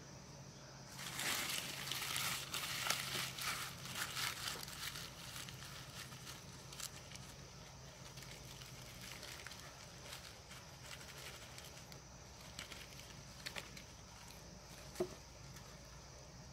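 Dry leaves rustling and crinkling as they are gathered and crumpled by hand, dense for a few seconds about a second in, then sparser crinkles and one sharp click near the end.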